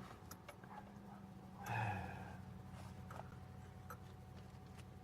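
Faint steady low hum with a few light clicks and a short breathy sound, like a sigh or grunt, about two seconds in.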